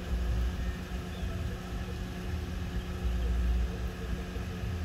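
Car stereo with a 12-inch subwoofer playing a bass-heavy track, deep bass hits coming every second and a half to two seconds.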